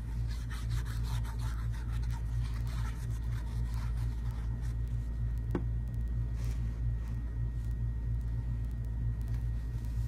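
Paper and small craft tools rubbing and scraping faintly on a wooden mouse trap during papercrafting, with one short squeak about halfway through, over a steady low hum.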